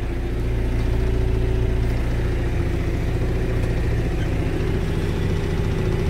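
John Deere 310SE backhoe's diesel engine idling steadily, heard inside the cab, with the cab heater blower fan pushing air through the dash vents. The sound grows a little louder within the first second.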